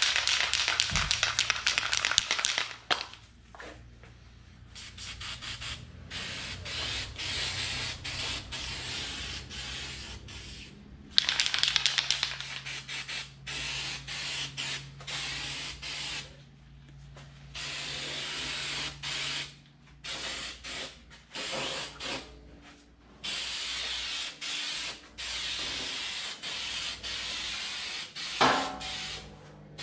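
Aerosol spray can hissing in repeated bursts of a second or two, with short pauses between.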